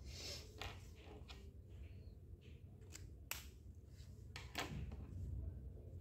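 Faint clicks and light handling noises from small objects being moved, over a low room hum. There are a few scattered sharp clicks, the loudest about three seconds in and just past four and a half seconds.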